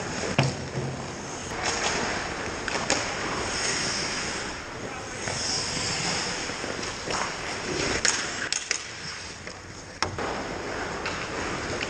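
Ice hockey play up close: skate blades carving and scraping on the ice, with scattered sharp clacks of sticks and puck, several sharp knocks about two-thirds of the way in and one near the end, and players calling out.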